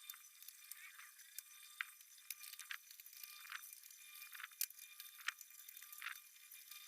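Faint, irregular light clicks and taps of steel shelving parts being handled and fitted together, about a dozen, over a faint steady high hum.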